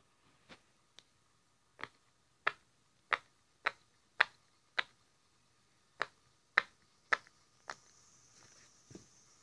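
Silicone pop-it fidget toy's bubbles popping one at a time under a finger: a dozen or so sharp pops, about one every half second, with a short pause midway and a last faint pop near the end.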